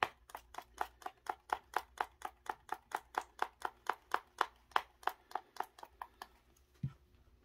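Fast, even tapping, about five taps a second for some six seconds, as green flocking is tapped out of its container onto glued terrain. A single dull thump comes near the end.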